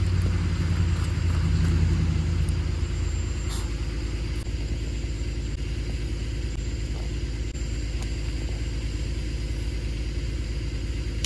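Low vehicle rumble, strongest over the first three seconds, then settling to a steady low drone.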